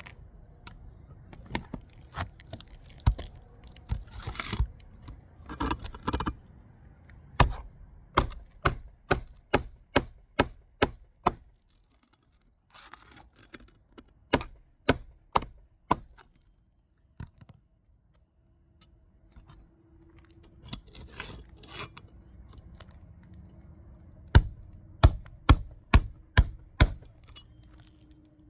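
Hand hammer driving roofing nails through a replacement asphalt shingle: runs of sharp knocks about two a second, with pauses between nails and some rustling of the shingle being positioned.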